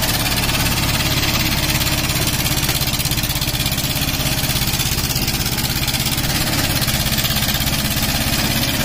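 Tata Hitachi mini excavator's diesel engine running steadily as the machine swings round and works its boom.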